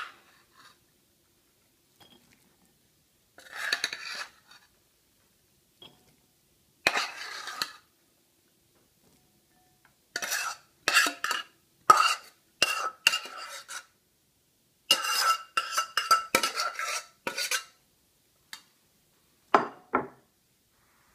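A utensil scraping and clinking against ceramic bowls as cooked brown rice is dished into them. There are a few scattered scrapes at first, then quick runs of ringing clinks in the second half and one last knock near the end.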